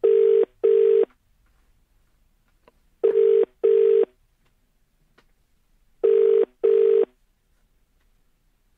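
British telephone ringing tone heard over the studio phone line: three double rings, each two short beeps, about three seconds apart. The number has been dialled and the line is ringing, not yet answered.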